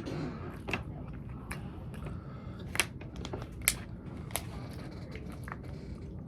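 Close-up eating sounds: scattered sharp crunches and clicks of biting and chewing food, about half a dozen, over a low steady hum.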